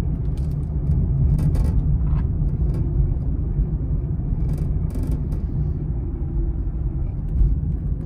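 Rebuilt police car driving down the street under power, a steady low engine and road rumble, with a few faint clicks or rattles along the way.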